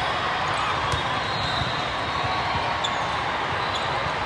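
Ball thumps and bounces repeating over the steady din of a large indoor sports hall.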